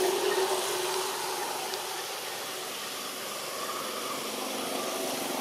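Steady background hiss, with a low hum that fades out in the first second.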